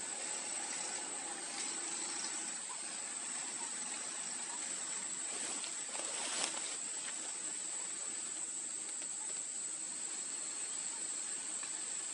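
Steady outdoor hiss with a constant high-pitched whine, and a brief rustle about six and a half seconds in.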